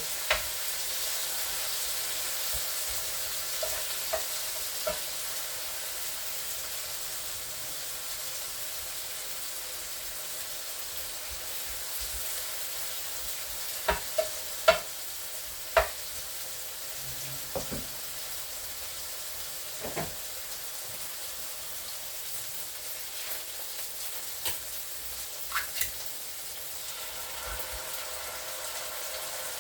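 Food sizzling steadily in a frying pan, with a few sharp knocks of a utensil against the pan now and then.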